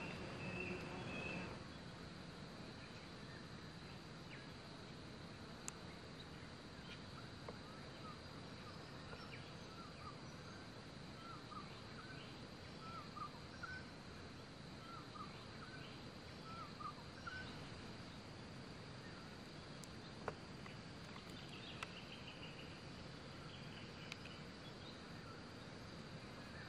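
Quiet outdoor bush ambience: small birds call in short chirps, mostly through the middle, over a steady high hum, with a few faint clicks.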